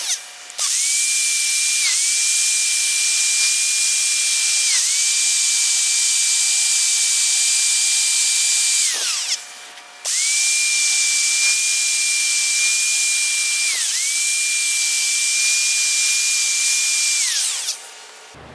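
Hand grinder running at a steady high-pitched whine with a strong hiss, in two long runs that each wind down, with a short stop about nine seconds in. Its pitch sags briefly now and then as it bites into the metal, grinding the sharp points off the stroker notches in the engine block.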